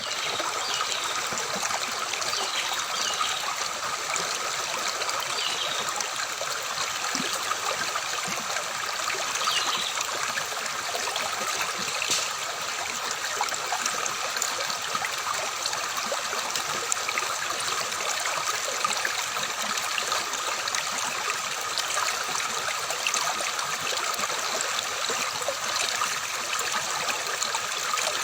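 Flowing water babbling and trickling steadily, like a small stream.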